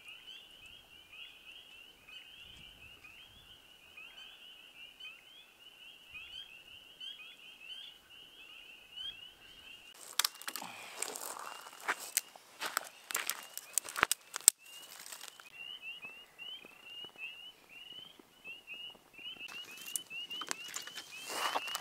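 A chorus of frogs peeping, many short rising calls overlapping in a steady high band. Bursts of close rustling and knocking come around the middle and again near the end.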